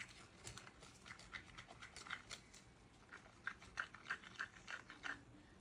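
Faint, irregular clicks and scrapes of a stir stick working through epoxy resin in a mixing cup, stirring in white colour so it marbles.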